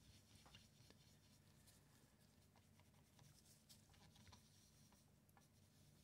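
Near silence, with faint rubbing and soft scattered ticks of a flannel rag wiping polishing compound off a typewriter's gloss black paint.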